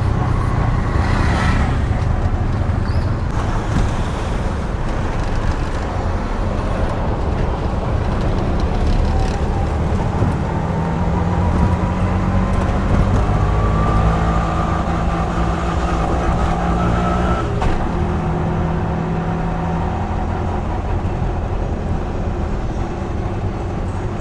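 Busy street traffic with vehicle engines running close by, a steady low rumble. In the middle one engine's pitch climbs for several seconds as it speeds up, then drops out suddenly.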